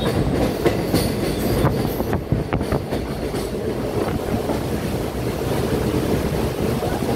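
Passenger train running over the Farakka Barrage rail bridge, heard from aboard: a steady rumble of wheels on the rails, with a handful of sharp clicks and knocks in the first three and a half seconds.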